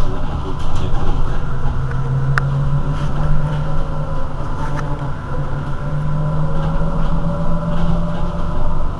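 Irizar i2e battery-electric city bus standing still, humming steadily with a faint high whine; the low hum steps slightly higher about halfway through.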